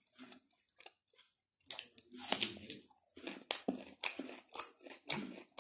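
A raw red onion being bitten into and chewed, giving crisp, wet crunches about two a second that start just under two seconds in.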